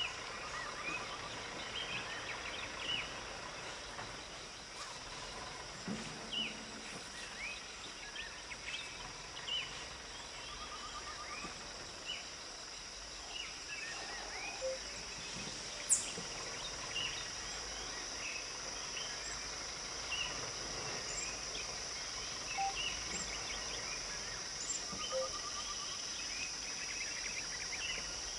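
Outdoor ambience: a steady high-pitched insect drone with many short bird chirps and calls scattered throughout. One brief sharp high sound about halfway through is the loudest moment.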